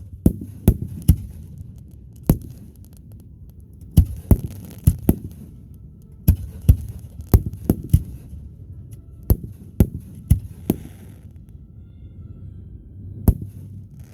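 Fireworks display: a run of sharp, loud bangs at irregular intervals, about twenty in all, some in quick clusters and some trailed by crackling. After a pause of a couple of seconds, one last bang comes near the end.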